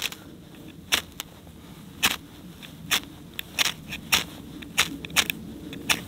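Victorinox FireAnt ferrocerium rod struck again and again with the saw blade of a Victorinox pocket knife, throwing sparks onto tinder. About nine short, sharp rasps, irregularly spaced, roughly one every half second to a second.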